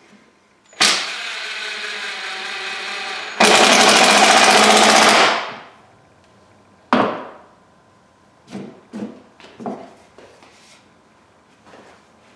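Cordless impact driver driving a screw into a wooden board. The motor spins for about two and a half seconds, then the impact mechanism hammers loudly for about two seconds as the screw seats, and stops. Afterwards there is one sharp knock and a few lighter knocks.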